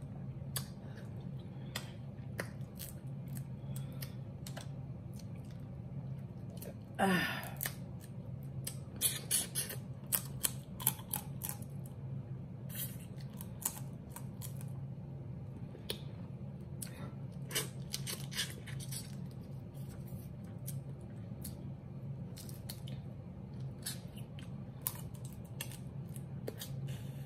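Close-up eating sounds of a seafood boil: shellfish shells being cracked and picked with the fingers, with wet sucking and lip-smacking clicks, and one louder drawn-out sound about seven seconds in. A steady low hum runs underneath.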